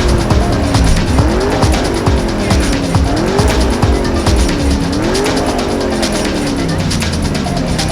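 A sports car's engine revved again and again, each rev climbing quickly and then falling away slowly, over music with a steady beat.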